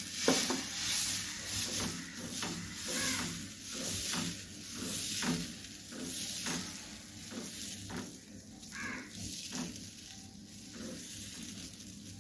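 Ladle spreading dosa batter in circles over a hot dosa tawa: a soft swish about once a second over a faint sizzle of batter on the hot pan, growing quieter near the end.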